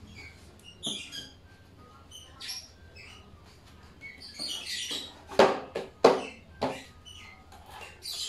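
Hands rubbing and handling a sanded wooden panel on a tile floor, with three sharp knocks of the wood about halfway through. Short high chirps and squeaks come and go throughout.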